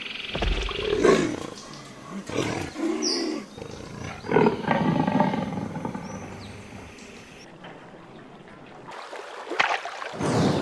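Lion roaring sound effect: a few loud roars in the first half, quieter after that, and another short loud burst near the end.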